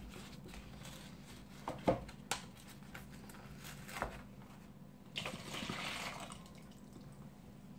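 A few short crinkles and clicks as a plastic pouch of buttermilk is handled and torn open, then, past the middle, about a second of buttermilk pouring from the pouch into a plastic bowl already holding buttermilk.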